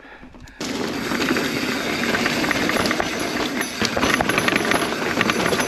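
Mountain bike descending a rough, rocky trail: steady tyre and rushing noise with rapid clicks and rattles from the bike over rocks and roots. It starts suddenly about half a second in.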